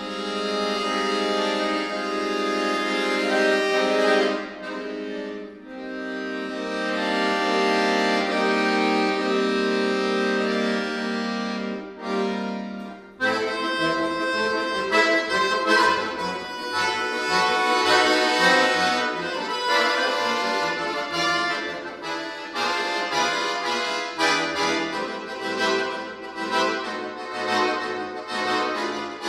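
Solo chromatic button accordion playing. For about the first half it holds sustained chords over a steady bass note. About 13 seconds in it breaks into a fast, rhythmic passage of short detached chords over a pulsing bass.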